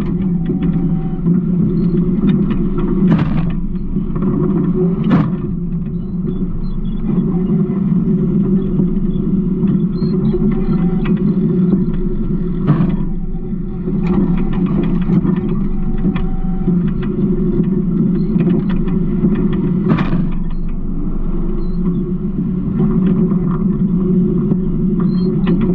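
Garbage truck's diesel engine running with a steady low rumble, broken by a few sharp knocks or rattles about 3, 5, 13 and 20 seconds in.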